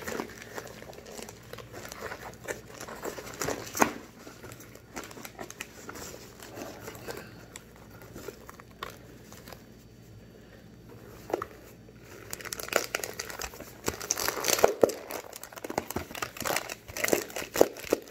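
A cardboard box of Argo cornstarch squeezed and crushed in the hands: the cardboard crinkles and the packed starch inside crunches in irregular crackles, which grow thicker and louder over the last five or so seconds.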